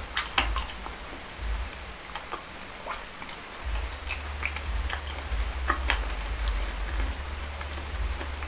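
Close-miked ASMR chewing of spicy boneless chicken feet and meatballs in thick sauce: irregular soft mouth clicks and smacks, with chopsticks picking through the saucy food.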